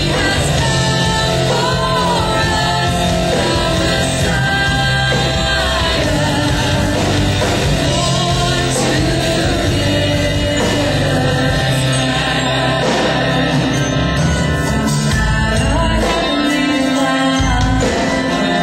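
Loud music with a singer, accompanying an aerial ribbon performance.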